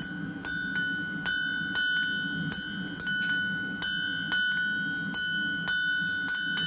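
Blacksmith's hand hammer striking a red-hot metal bar on an anvil, about two blows a second, the anvil ringing on after each blow: squaring off the end of the bar.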